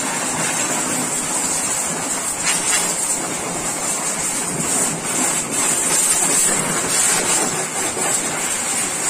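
Pressure washer's high-pressure water jet spraying into a jeep's engine bay: a steady hiss of spray striking metal.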